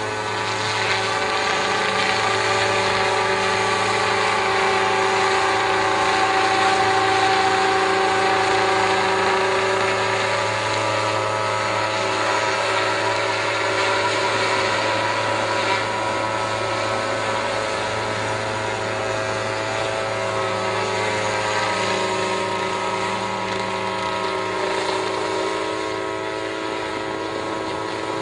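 A motor running steadily: a constant low hum with several steady whining tones above it.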